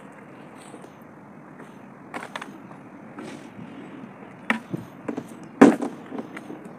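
A plastic bucket handled on a sign panel laid over gravel: a few separate sharp knocks and clunks, the loudest about five and a half seconds in, over a steady low background hiss.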